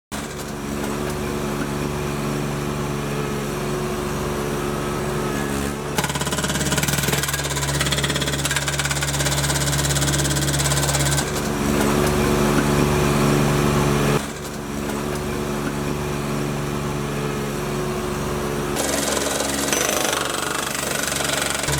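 Mini skid steer engine running with its jackhammer attachment hammering, the hammering noise shifting in several stretches over the engine's steady note.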